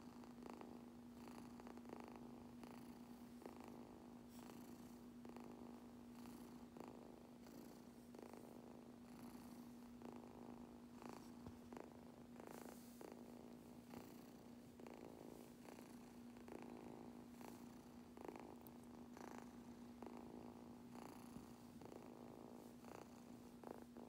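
Persian kitten purring faintly and steadily, pulsing in an even rhythm, while being brushed and stroked.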